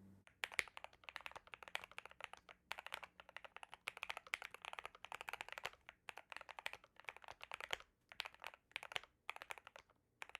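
Custom Keychron Q2 mechanical keyboard with lubed and filmed Gateron Black Ink V2 switches and foam and tape-mod dampening, typed on hard so every key bottoms out. Fast runs of deep-sounding keystrokes come in bursts, broken by short pauses.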